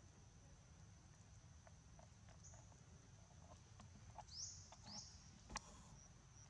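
Faint outdoor ambience: a steady thin high-pitched drone under a low rumble, with scattered soft clicks, two short rising chirps about four and five seconds in, and one sharp click just after them.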